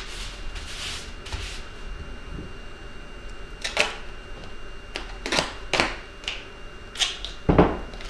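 Hands rubbing duct tape down onto bubble wrap, then duct tape pulled off the roll and torn into short strips: several quick rips in the second half, the last one the loudest.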